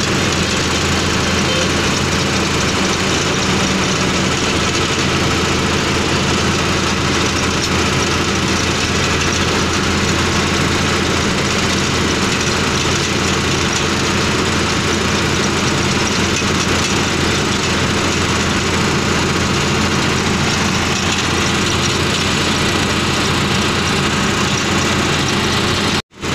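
Truck's diesel engine running steadily at cruising speed with road and wind noise, heard from inside the cab. The sound cuts out briefly near the end.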